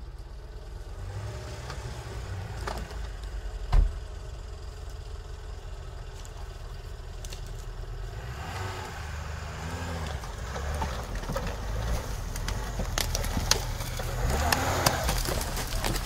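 Lada Niva's engine running in the mud, revving up a couple of times with rising pitch as the car crawls forward. There is a single sharp knock about four seconds in. Rustling and crunching come near the end.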